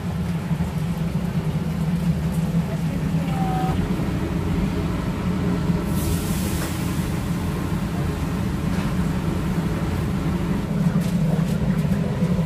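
Steady low rumble of street ambience, with a short hiss about six seconds in.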